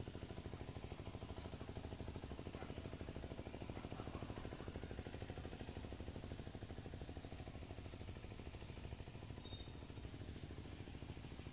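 A small engine running steadily and faintly, with a fast, even thumping beat. A few short, high chirps stand out over it.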